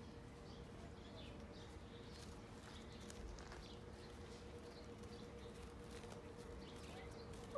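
Faint, scattered chirps of small birds over a faint steady hum.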